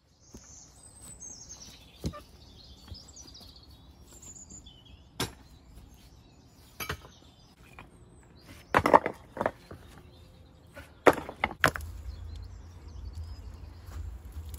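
Birds chirping, then loose walling stones clacking and knocking together as they are lifted and handled, a handful of sharp knocks with the loudest cluster about 9 and 11 seconds in. A low rumble sets in near the end.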